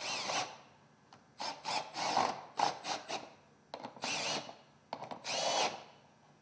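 Milwaukee M18 cordless drill driving the bolts of a duct clamp tight, in about five short runs with pauses between them. Each run's motor whine rises and falls in pitch.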